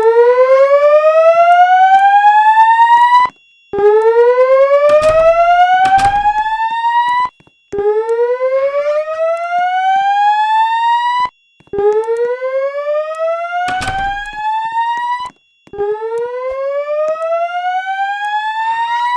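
Fire alarm voice-evacuation system sounding its loud slow-whoop evacuation tone: five rising sweeps, each about three and a half seconds long, with a short break between them. This is the evacuation signal played between the recorded evacuation announcements.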